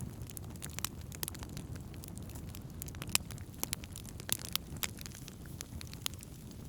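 Wood campfire crackling, with sharp irregular pops and snaps over a low, steady rumble.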